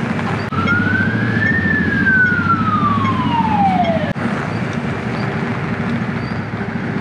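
A siren wails once, rising briefly and then sliding down in pitch before cutting off suddenly about four seconds in, over steady street traffic noise.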